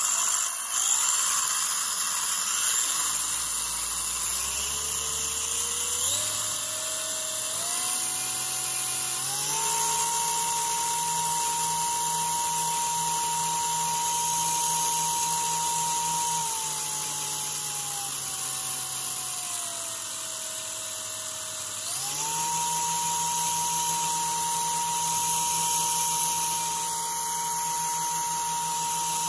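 Losi Mini-B's 7800kV brushless motor and 28-tooth pinion gearing driving the wheels with no load: a high whine that climbs in steps over the first ten seconds and holds. It eases down between about sixteen and twenty-one seconds, then jumps back up at about twenty-two seconds and holds to the end.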